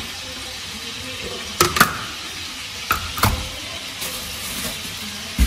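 Kitchen handling sounds at a sink: a few sharp clicks and knocks of a plastic tub being set down and a plastic bag of vegetables being handled, with a heavier thump near the end. A steady hiss sits under them throughout.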